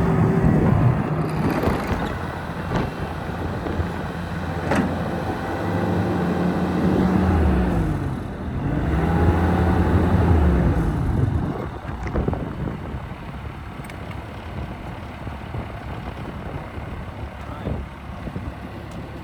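Bobcat T66 track loader's diesel engine running and working, its pitch sagging to a low point about eight seconds in and climbing back. About twelve seconds in it drops to a quieter running sound with scattered clicks and knocks.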